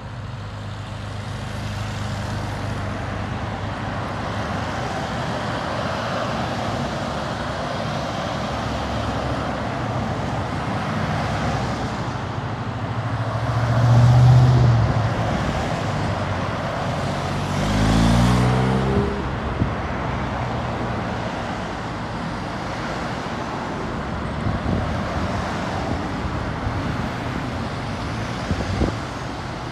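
A motorcade of police motorcycles, SUVs and a minibus driving past one after another through a roundabout, engines and tyres running steadily. About halfway through one vehicle passes close and loud, and a few seconds later an engine accelerates with its pitch rising.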